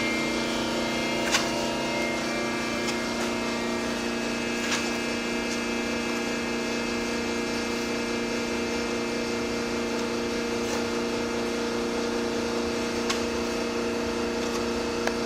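A steady motor hum holding an even pitch, with a few sharp clicks over it; it cuts off abruptly at the end.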